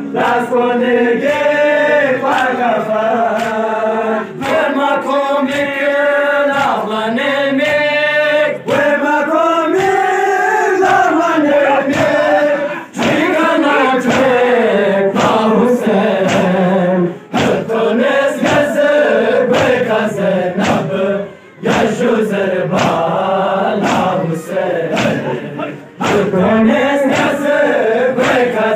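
A group of men chanting a noha, a Shia mourning lament, together in chorus, with sharp slaps of hand-on-chest matam breaking in from time to time.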